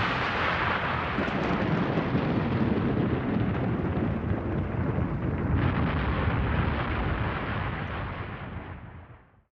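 Thunder rumbling in one long, continuous roll. It turns suddenly brighter a little past halfway, then fades out near the end.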